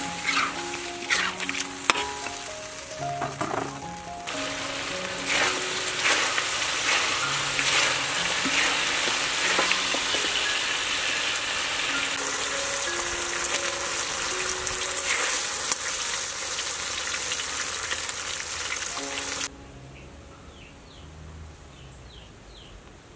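Chicken pieces sizzling in a wok with a little added water, with a metal spatula clicking and scraping against the pan in the first few seconds. The sizzling cuts off suddenly near the end.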